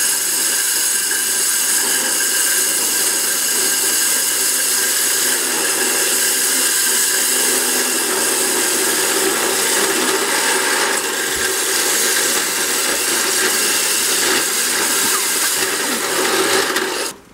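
Corded electric drill running a YATO YT-6045 diamond core bit through a hollow clay brick: a steady motor whine over a gritty grinding of the bit on the fired clay. It stops abruptly near the end.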